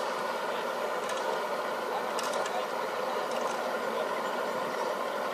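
Speedboat outboard motor idling steadily, with a few faint ticks and rattles about once a second.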